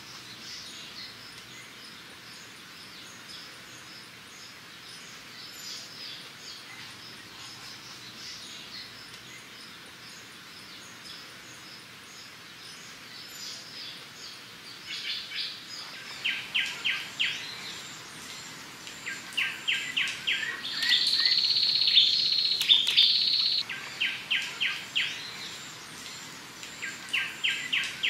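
Forest ambience with birds calling. In the second half, loud groups of short, quick high notes repeat every few seconds, with a steady high tone held for about three seconds in between.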